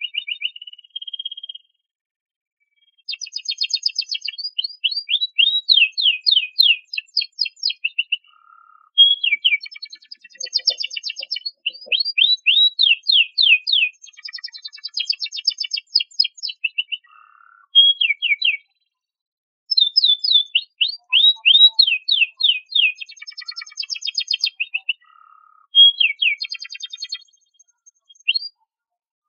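Domestic canary singing: high-pitched phrases of fast, repeated down-sweeping notes and rapid trills, several seconds long, with short silent pauses between them.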